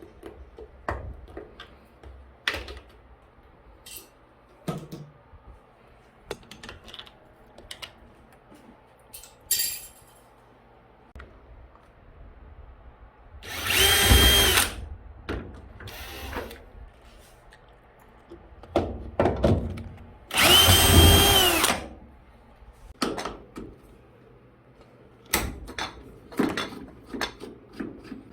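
Power drill-driver running in two bursts of about a second and a half each, its motor whine rising, holding and falling, removing screws while a top-loading washing machine is taken apart. Between the bursts, clicks and knocks of parts and screws being handled.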